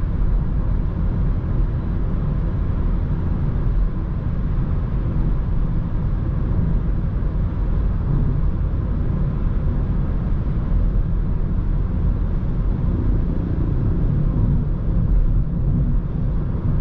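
Steady road and wind noise inside a Renault Megane IV's cabin while cruising at about 120 km/h on the highway: a constant low rumble with no sudden changes.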